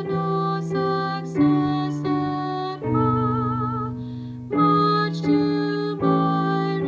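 A tenor voice singing a slow song in long held notes, each lasting about a second, with a wavering vibrato on one held note near the middle.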